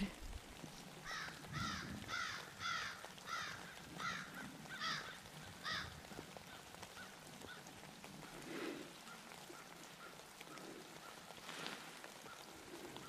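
A bird calling: a run of about eight calls, roughly two a second, then a few fainter calls.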